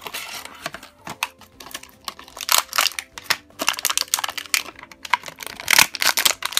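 Clear plastic blister packaging of a mini doll being crinkled and pried open by hand: a rapid run of sharp clicks and crackles, loudest about two and a half seconds in and again near the end.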